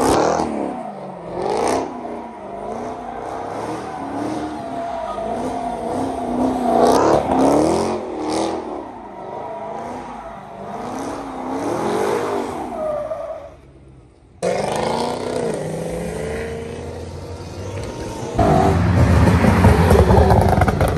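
A car doing donuts in tyre smoke, its engine revs rising and falling again and again over tyre squeal. After a break, another car accelerates hard past and gets much louder near the end.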